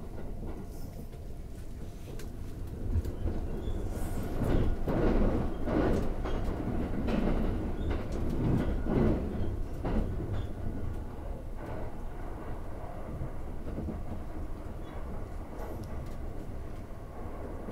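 Thunderbird limited express train running on the rails: a steady rumble of wheels and running gear, swelling louder for several seconds in the middle, with scattered rail clicks.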